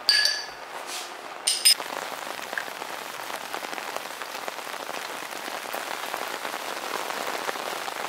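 A spoon clinks twice against a ceramic bowl, then steady rain falls for the rest of the time.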